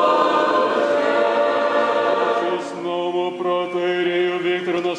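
Orthodox church choir singing a cappella. The choir ends about halfway through, and a single male voice takes over, intoning liturgical chant on held notes that step in pitch.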